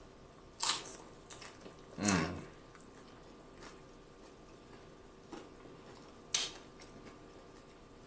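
A man biting into and chewing a loaded nacho chip close to the microphone: a few short, sharp crunches and soft chewing sounds, with a short hum of the voice about two seconds in.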